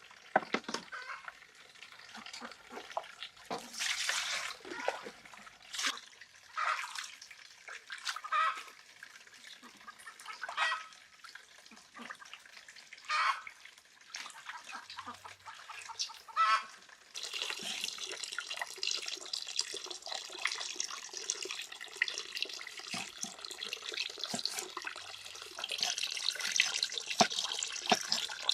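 A string of short, separate sounds, then from about two-thirds of the way through a steady rush of running water, like a tap running into a sink.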